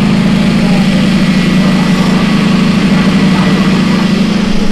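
An engine idling steadily and loudly, with an even low drone that does not rise or fall.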